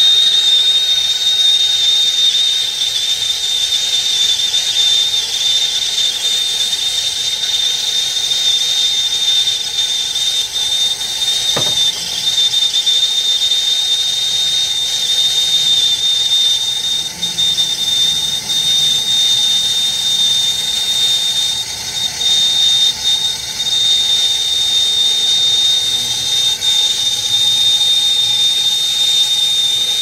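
Asco self-lighting air-acetylene torch burning on acetylene alone, a steady loud flame hiss with a high whistle held over it, as it heats a 5/8-inch copper elbow for brazing.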